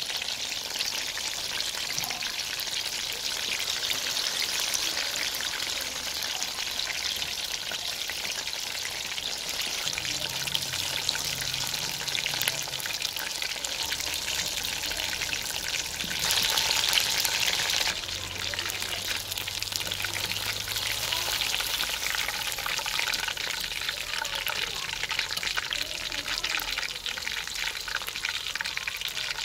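Chicken pakoras deep-frying in hot oil: a dense, steady crackling sizzle as the pieces are turned with a wooden spatula, swelling louder for a couple of seconds just past halfway.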